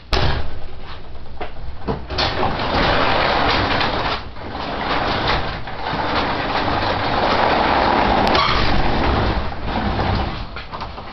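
Craftsman push mower's small engine, run with no muffler, starting up suddenly and then running loud and raw; the owner says it has a bent crankshaft. Its level falls away near the end.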